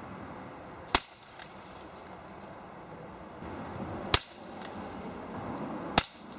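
Three shots from a Beretta PX4 Storm CO2 air pistol firing .177 pellets, each a single sharp crack, about three seconds and then two seconds apart. A much fainter click follows about half a second after each shot.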